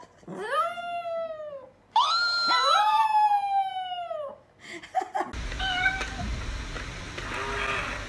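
Chihuahua howling: two long calls that rise and then slide down in pitch, the second longer with a second voice overlapping it. After a few clicks, a steady low hum with faint tones follows.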